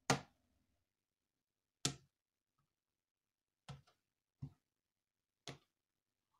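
Five short knocks of 3D-printed plastic parts set down one at a time on a tabletop, with silence between them; the first two are the loudest.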